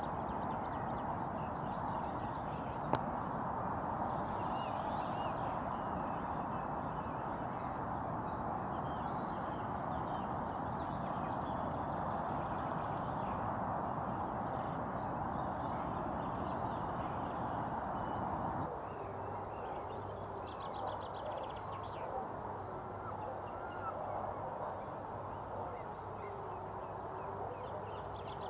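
Outdoor spring ambience of wild birds chirping and singing over a steady rushing background, with one sharp click about three seconds in. About two-thirds of the way through the background rush cuts off, leaving quieter bird calls, some of them lower.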